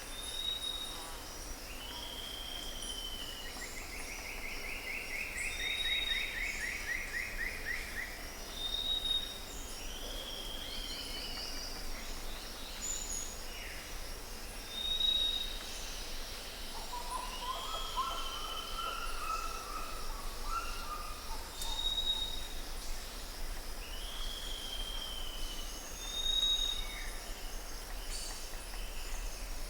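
Several birds calling over a steady high insect trill. A short high whistle repeats every two to three seconds, mixed with down-slurred notes and a longer buzzy trill a few seconds in.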